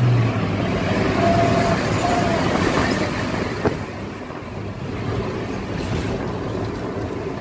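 Road and engine noise of a moving vehicle in traffic. A steady low tone cuts off just after the start, two brief faint tones follow, and there is a sharp click about three and a half seconds in.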